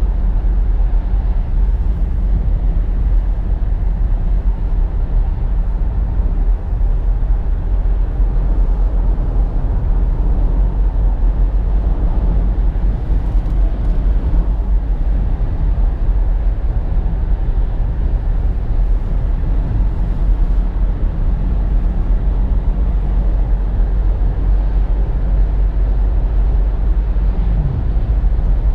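2017 Nissan Rogue SV AWD driving at highway speed: a steady, loud low rumble of road and engine noise.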